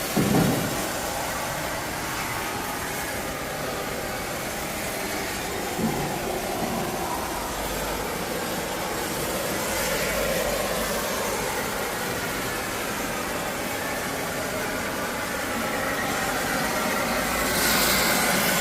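Brazing torch flame with a steady rushing roar while hard copper pipe is brazed. There is a brief knock at the start and another about six seconds in, and the flame grows louder and hissier near the end.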